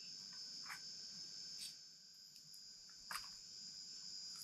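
Steady high-pitched drone of forest insects, with a few faint clicks and rustles and a slightly louder tap about three seconds in.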